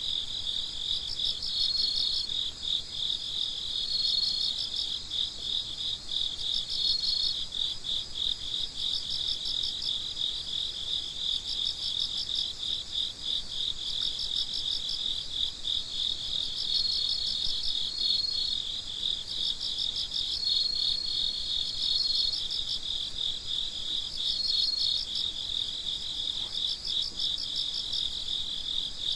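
Night chorus of crickets: a steady pulsing trill, with short bursts of chirps from another cricket every two or three seconds.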